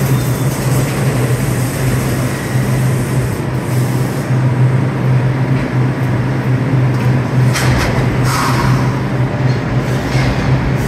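New York City subway train standing at the platform with its doors open, its onboard equipment giving a steady low hum under station noise, with a short burst of hiss a little past halfway.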